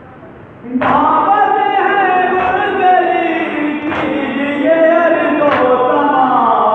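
A group of men chanting a noha, a Muharram lament, together in unison, starting about a second in. Sharp slaps of hands striking chests (matam) land in time about every second and a half.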